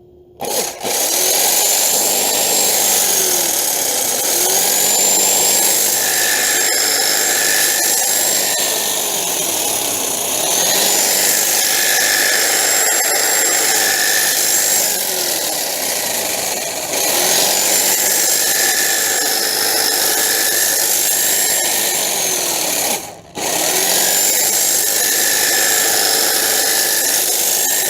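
Ryobi hedge trimmer running loudly, its motor pitch wavering up and down every few seconds. It cuts out briefly about 23 seconds in and starts again.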